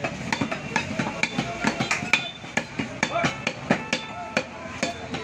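Knife strokes knocking on a wooden butcher's chopping block as beef is cut, several sharp, irregular knocks a second, with market chatter behind.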